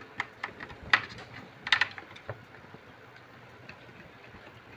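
Sharp clicks and taps from hands plugging a power connector onto a hard drive inside a Dahua DVR and closing the DVR's metal cover. There are several clicks in the first two seconds, the loudest about a second in, then only faint ticks.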